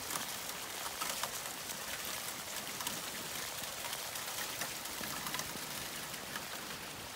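Heavy rain falling steadily: a continuous hiss of drops with small scattered patters.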